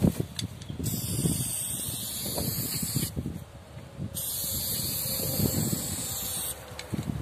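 Aerosol spray paint can hissing in two long sprays of about two seconds each, with a pause of about a second between them. A steady low rumble runs underneath.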